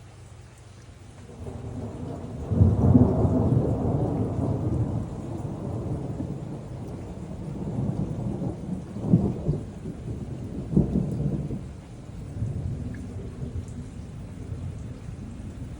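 Thunder rolling over steady rain. A deep rumble builds about a second in and is loudest about three seconds in. It rolls on with two sharper claps, about nine and eleven seconds in, then dies away to the rain.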